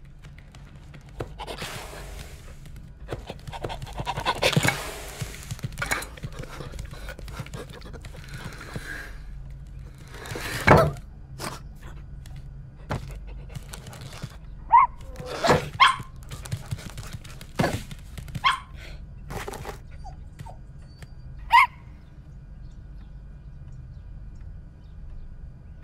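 Cartoon sound effects for a dog: panting and sniffing breaths, then a series of sharp thunks, some with short high cries, over a low steady hum.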